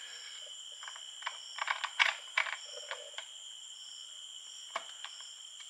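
A run of small metallic clicks and light knocks as the differential and its carrier bearing are handled in the opened CVT case, most of them in the first three seconds and one more near the end.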